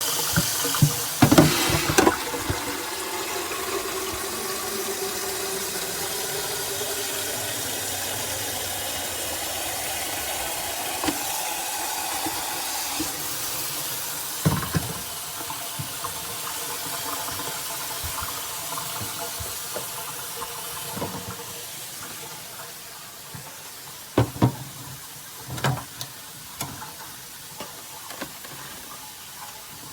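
Keurig K-Slim pod coffee maker brewing, a steady hiss of liquid streaming into a cup, the pitch rising slowly as the cup fills, then easing off. A few knocks and clicks in the first two seconds, another about halfway, and two more near the end.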